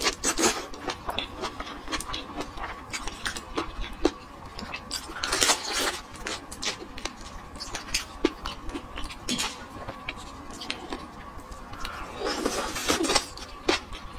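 Close-miked eating of large shrimp: wet mouth clicks and smacks while sucking and chewing the shrimp meat, with a few longer noisy sucking stretches about five seconds in and near the end.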